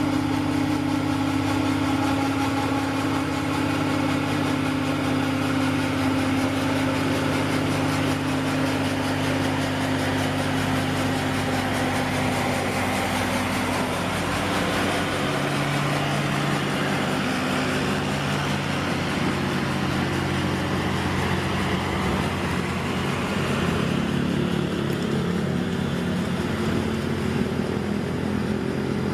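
Radio-controlled excavator running: a steady motor hum that changes pitch a couple of times as it works.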